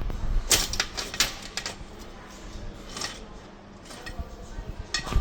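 Aluminium table base being forced into place on the tabletop: a handful of sharp clicks and knocks of metal parts, most within the first two seconds, another about three seconds in and one at the end.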